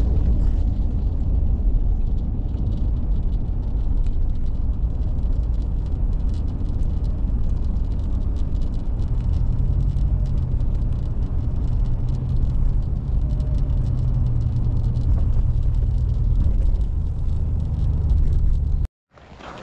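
Car driving: a steady low road and engine rumble, with a low hum that grows stronger about halfway through.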